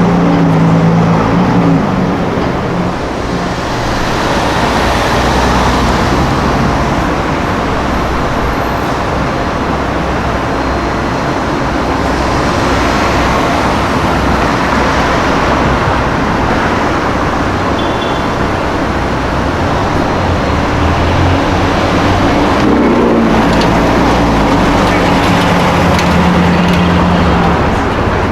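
Cars driving by on a city street: engines running and tyre noise, with one engine's steady hum standing out near the start and again over the last few seconds.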